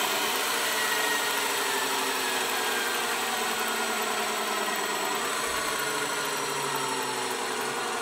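Simulated truck diesel engine sound from an ESP32 RC sound controller, its revs falling steadily as the software-simulated Allison automatic transmission downshifts.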